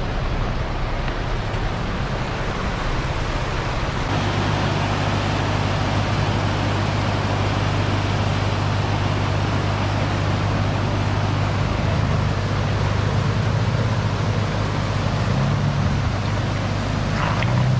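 Rushing mountain creek water with a Chevrolet Colorado ZR2 pickup's engine running low and steady as it drives through the stream crossing. The engine hum grows stronger about four seconds in.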